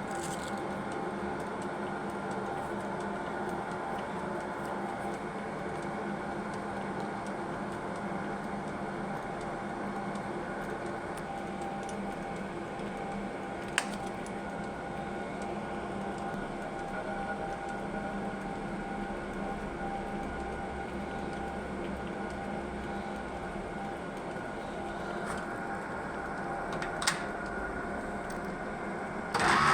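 Conventional lathe running steadily, its motor and gearing giving a constant machine hum, with a sharp click about halfway through and another near the end.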